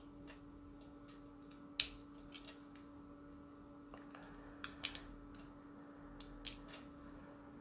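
Small sharp clicks and taps of a metal pick tool against a thin metal cutting die as a die-cut paper shape is poked out of it, with the three loudest clicks about two seconds in, near five seconds and about six and a half seconds in. A faint steady hum lies underneath.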